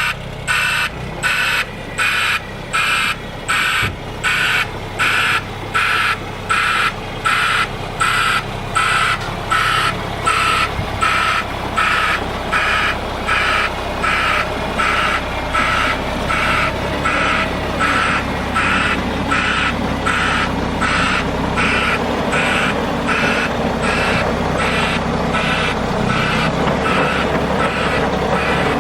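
A heavy vehicle's reversing alarm beeping steadily, about three beeps every two seconds, over its running diesel engine. The beeps grow fainter in the last third.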